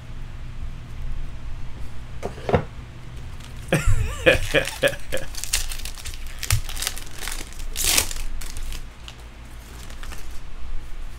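Foil wrapper of a trading card pack being torn open and crinkled by hand: a run of crackles and rips over several seconds, the loudest rip about eight seconds in.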